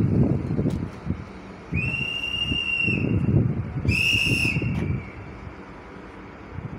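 A railway staff whistle blown twice: a steady high blast of a little over a second, then a shorter, louder one. It is the departure signal for the train at the platform. Wind rumbles on the microphone.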